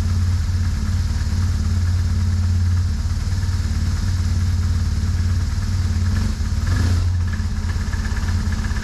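BMW R1150R's air-cooled boxer-twin engine running steadily, with a brief change in the sound about six to seven seconds in.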